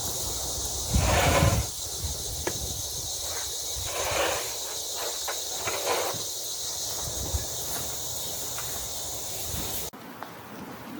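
Steady high-pitched insect drone, with three short rustling or scraping sounds about a second, four seconds and six seconds in. The drone breaks off abruptly near the end.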